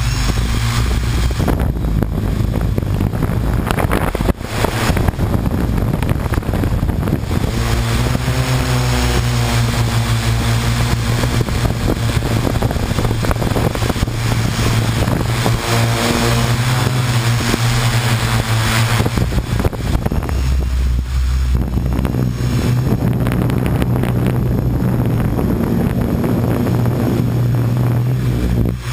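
Quadcopter drone's electric motors and propellers buzzing steadily, recorded close up by the camera on the drone itself, the pitch wavering at times as the motors speed up and slow down.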